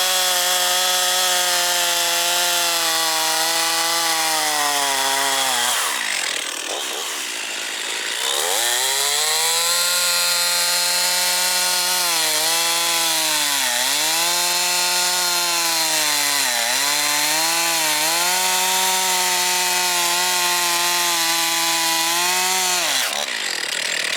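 Stihl MS362 two-stroke chainsaw running at full throttle while bucking a log. Its note falls away about six seconds in as the first cut finishes, then climbs again for a second, longer cut, dipping briefly a few times as the chain loads up in the wood, and drops off near the end. The saw is running on freshly replaced fuel lines.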